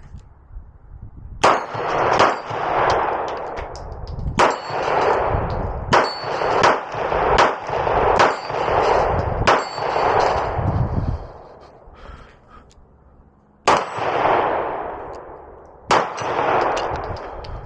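Beretta pistol shots fired at a steady pace, about one every three-quarters of a second for some ten shots, then two more after a pause. Each shot is followed by a long echoing decay with a thin metallic ring.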